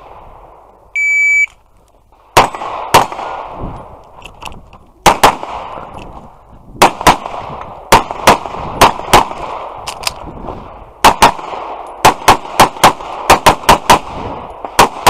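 Shot timer's start beep, a short steady tone, then a semi-automatic pistol fired in quick pairs, about two dozen shots in fast strings with brief pauses between target arrays and one longer break midway.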